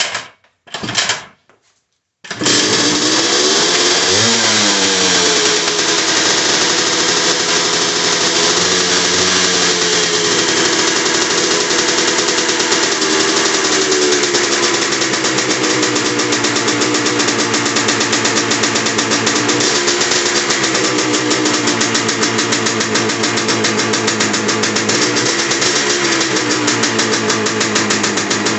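1974 Yamaha DT360A's single-cylinder two-stroke engine being kick-started: two short kicks, then it catches about two seconds in on a cold start after sitting two and a half weeks. It then runs steadily, the revs rising and falling a few times as the throttle is worked.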